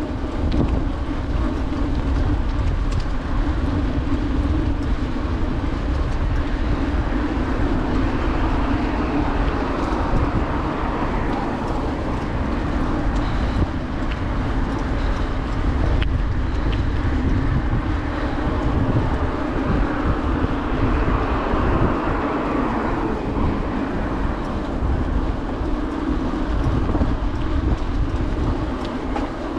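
Steady rolling noise of a bicycle ridden at speed on a paved path. Wind buffets the microphone with a low rumble, and the tyres keep up a steady hum.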